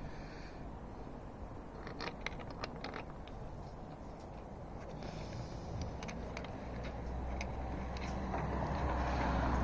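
Small metal clicks and scrapes of a bolt and washer being worked into a tailgate bracket, clustered about two to three seconds in. A low rumble builds from about halfway and grows louder toward the end.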